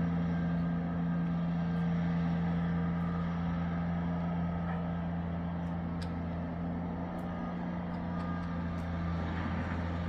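A steady low mechanical hum holds one unchanging pitch throughout, over a faint outdoor background hiss.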